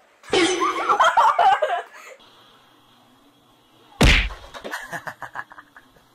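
A single loud thump about four seconds in, as a kitten leaps at a wooden coffee table, followed by light clattering. Before that comes about a second and a half of a wavering pitched sound.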